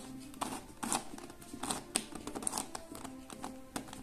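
Plastic clicking and clacking of a QiYi Pyraminx Crystal dodecahedron puzzle being turned by hand, in quick irregular bursts of clicks. The puzzle is unlubricated and turns dry.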